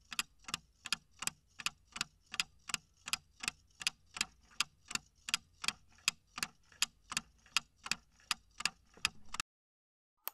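Clock-ticking sound effect for a countdown timer: evenly spaced sharp ticks, about three a second, stopping about a second before the end as the countdown reaches zero.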